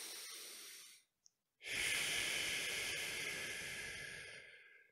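A man taking a deep breath close to a microphone: an in-breath fading out about a second in, then after a short pause a long, slow out-breath lasting about three seconds.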